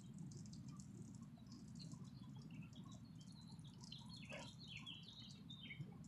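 Faint birds chirping, busiest about four to five seconds in, over a low steady rumble and the light patter of a lawn sprinkler's spray falling on a car.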